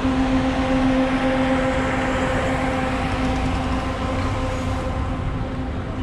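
Tour coach horn sounding one long, steady note over a low rumble.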